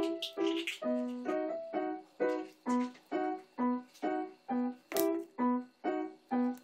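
Background music: a keyboard playing short, evenly spaced notes, about two a second, in a repeating pattern.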